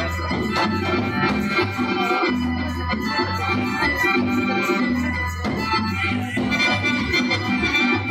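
Live Serbian folk band playing fast dance music: accordion carrying the tune over a double bass with a steady, regular beat, with violin and strummed strings.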